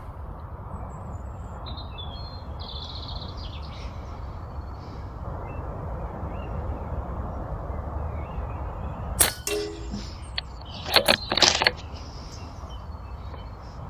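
.177 air rifle firing a single shot about nine seconds in. A quick run of sharp clicks follows about two seconds later. Birds chirp early on over a steady low outdoor rumble.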